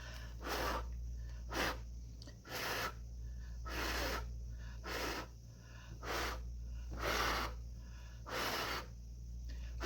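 Eight short puffs of air, roughly one a second, blowing wet acrylic paint across a beach pour to push it into waves. A steady low electrical hum runs underneath.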